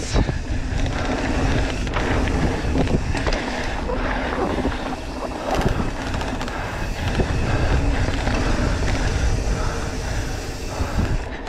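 Mountain bike rolling fast over a rough dirt trail: knobby tyres on the ground and the bike rattling and clattering over bumps, with wind noise rumbling on the microphone.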